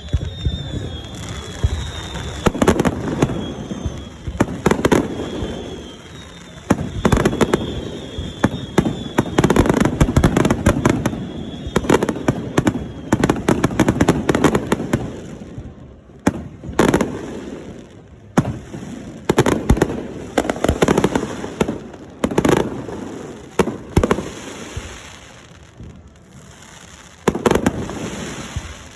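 Fireworks display: aerial shells bursting in a rapid barrage of sharp bangs with crackle between them, thinning to separate bangs spaced a second or two apart in the second half.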